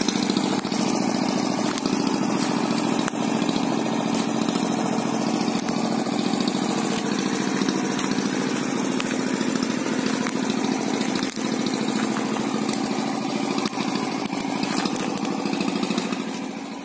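Small boat engine running at a steady speed, fading away near the end.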